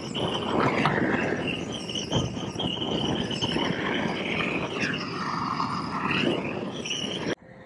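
Hose-fed propane roofing torch burning with a steady rushing hiss as its flame heats and dries damp gutter metal. Its tone dips and comes back around five to six seconds as the torch is moved, and the sound cuts off abruptly near the end.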